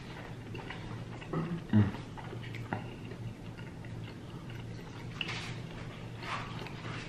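Eating at the table: scattered small clicks and soft crunches of chewing and utensils, with a louder thump a little under two seconds in, over a low steady hum.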